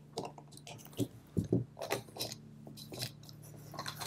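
Steel parts of a pistol's bolt and slide being handled and fitted together: a run of small metallic clicks and scrapes as the recoil spring is pushed in and its catch locked, with a pair of heavier knocks about a second and a half in.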